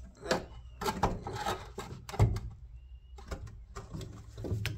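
Irregular metallic clanks and knocks from hand tools and suspension parts as a car's rear suspension is bolted back together by hand, the loudest knock about two seconds in.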